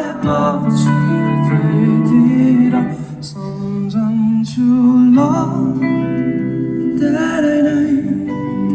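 Live band music over a PA during a sound check: guitar and other instruments playing, with a voice singing in places.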